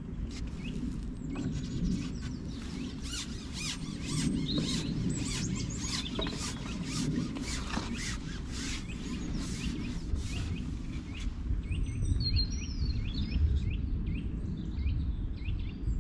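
Outdoor ambience with wind rumbling on the microphone. A quick run of clicks and taps lasts through the first ten seconds or so, then small birds chirp near the end.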